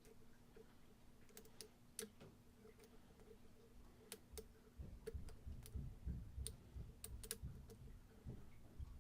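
Faint, scattered clicks of a lock pick working the pins of a Yale mortise cylinder under tension, with a low handling rumble through the middle.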